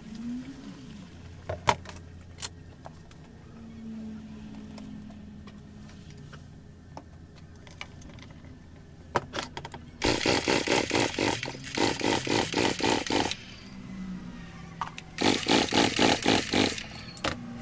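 Rapid, evenly repeating mechanical clatter from work on a Husqvarna 365 chainsaw, in two runs of about three seconds each, the first starting about ten seconds in. A few scattered clicks and knocks come before it.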